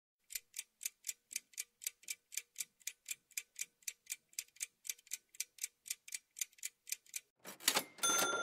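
Countdown-timer sound effect: a clock ticking about four times a second for about seven seconds, then a short whoosh and a bell-like ding as time runs out, the ding ringing on near the end.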